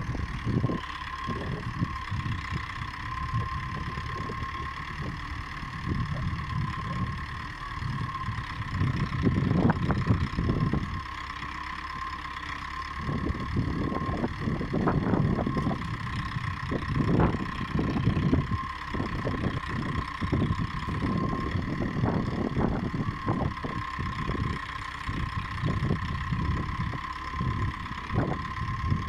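LKT-81 forestry tractor's diesel engine running while its hydraulic crane loads brush, the engine note swelling and easing as the crane works, with a steady high whine. A few sharp knocks come through, around a third of the way in and again past the middle.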